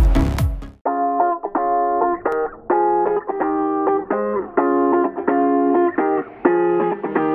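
Background music. An electronic intro sting with falling bass sweeps fades out under a second in, then a plucked guitar tune takes over, playing short chords with brief gaps between them.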